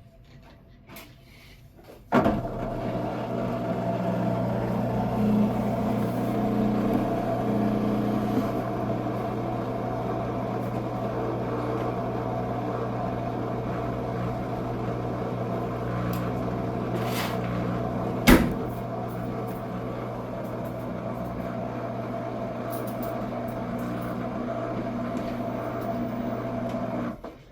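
Washing machine running: a steady mechanical hum starts suddenly about two seconds in, holds an even pitch, and stops abruptly near the end, with one sharp click partway through.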